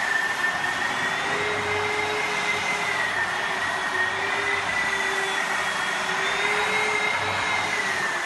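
Electric drywall sander running steadily against a plasterboard ceiling, its motor whine wavering slightly up and down in pitch over a steady rush of air and abrasion.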